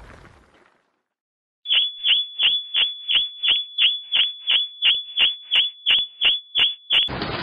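High-pitched electronic alarm beeping, about three sharp beeps a second over a steady tone, starting after a second or so of silence and stopping abruptly near the end.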